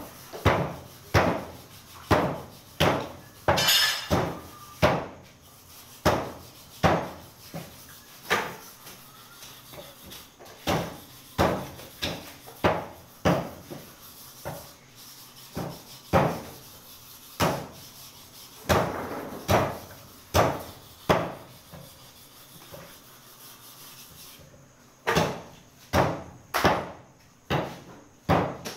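Butcher's cleaver chopping beef on a wooden block: a run of sharp chops about one a second, then a pause of a few seconds and a quicker run of chops near the end.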